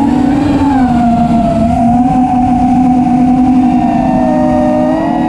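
FPV racing quadcopter's brushless motors and propellers whining, heard through its onboard camera, with low wind rumble on the microphone. The pitch rises just after the start, holds fairly steady, sags a little near the end, then climbs again as the throttle changes. The whine stays smooth, with no wobble of oscillation, on its retuned KISS flight controller.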